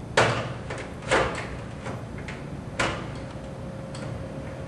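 Three sharp knocks with a few lighter clicks between them: plastic parts of a Lennox Healthy Climate WB2-12 humidifier being handled and pushed into place in its housing.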